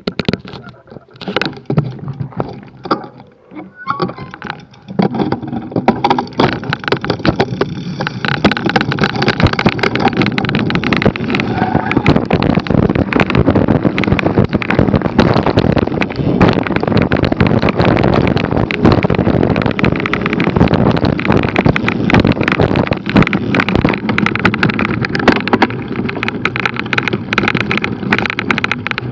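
Cannondale F-Si hardtail mountain bike rattling over a rough dirt trail: tyre rumble, chain slap and frame clatter, with a stream of fast clicks and knocks. Scattered knocks for the first few seconds, then from about five seconds in a steady, dense rattle as the bike picks up speed.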